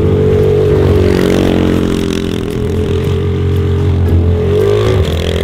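Scooter engine of a jet ski converted to run on wheels, running steadily under throttle as it is ridden across dirt. Its pitch sags a little and then climbs again near the end.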